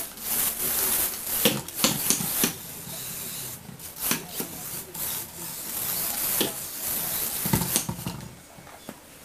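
Lego Technic two-wheeled toy rolling and tumbling across a wooden floor: rubber tyres rubbing on the boards with irregular plastic knocks over a steady hiss, going quieter about eight seconds in.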